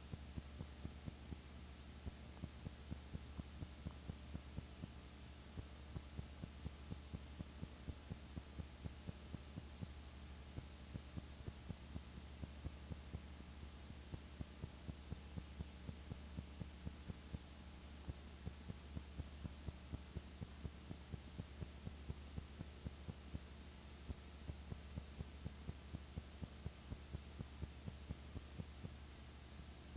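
Faint steady low electrical hum with soft regular clicks about four a second: the noise floor of a silent home-movie transfer, with no sound from the scene itself.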